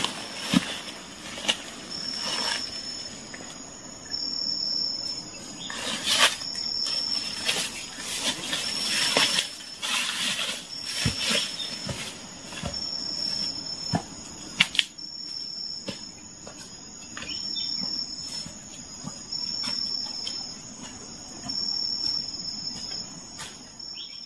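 Footsteps rustling and snapping through dry undergrowth and leaf litter, fading as the walker moves off, with an insect chirping a high note in short phrases repeated about every second and a half.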